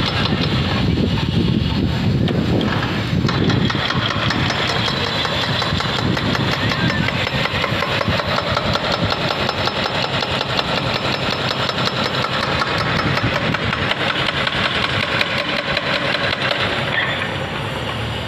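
Diesel engines of construction machinery, a backhoe loader and an excavator, running steadily with a fast, even pulsing.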